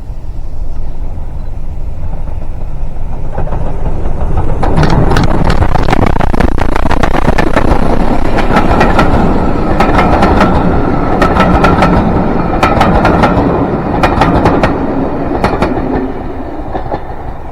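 A train passing close by: a rumble builds, then the wheels clatter over the rail joints in a run of rapid clicks for about ten seconds before the sound fades away.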